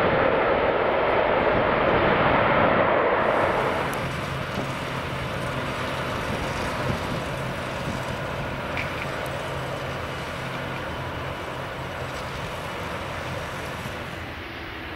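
Airliner's engines passing close by, loud for the first few seconds, then dropping sharply about four seconds in and fading away slowly as the aircraft moves off.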